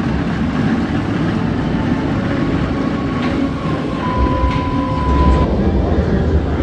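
Nemesis Reborn inverted steel roller coaster train rumbling along its track, growing heavier about four seconds in, with a thin steady whine for about a second and a half in the middle.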